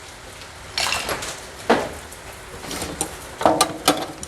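Tools and small metal items clinking and knocking as they are picked up and set down, with a quick run of sharp clinks in the last second and a half.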